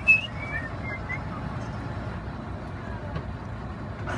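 A few high whistled notes in the first second, over the steady low rumble of the fishing boat's engine running.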